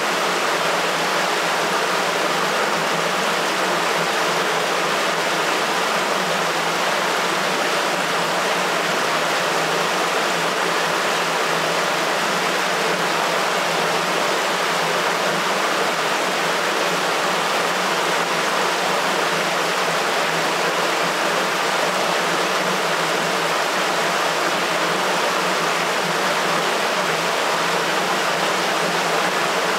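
Wastewater rushing steadily through a sewer.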